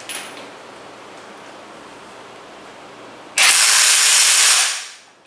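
ZIPPTORK cordless impact wrench driving a flange bolt for about a second and a half, loud and dense, then dying away as it stops at its set torque. A short click comes just before it, near the start.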